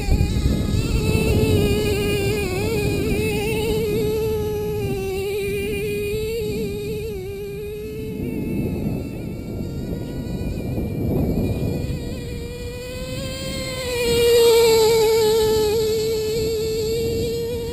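Small two-stroke engine of a radio-controlled off-road car running at high revs: a steady buzzing note that wavers up and down with the throttle. It rises in pitch and grows louder about fourteen seconds in.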